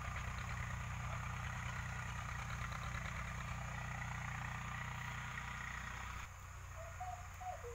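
Tractor's diesel engine running steadily as a low hum, cutting off abruptly about six seconds in. A brief faint call follows near the end.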